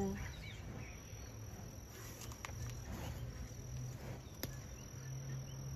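Field insects chirring steadily with a thin, high, even tone, over a low steady hum. A few faint clicks come through about two and a half and four and a half seconds in.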